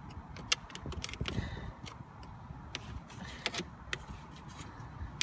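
A flat stick scraping and knocking against snow and metal parts in an engine bay: a string of sharp clicks and scrapes, the loudest about half a second in.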